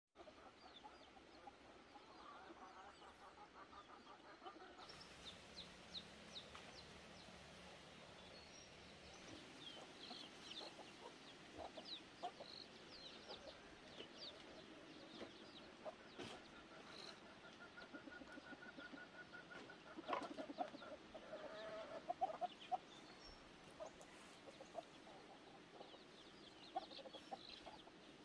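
Chickens clucking faintly, with many short high chirps throughout and a few louder clucks about two-thirds of the way through.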